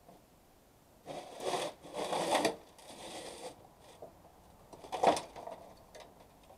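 A partly stripped metal air conditioner being tipped over and shifted on a workbench: a few seconds of rattling and scraping, then a single sharp clunk about five seconds in, the loudest sound.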